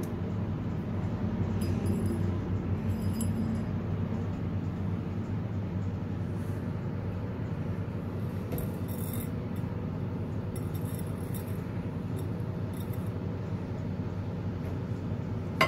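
A steady low hum in the background, with a few faint clinks of a glass bowl as potato balls are dipped in beaten egg and rolled in breadcrumbs.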